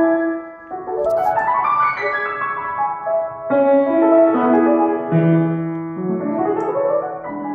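Niendorf grand piano being played: quick rising runs about a second in and again near the end, with held chords ringing between them.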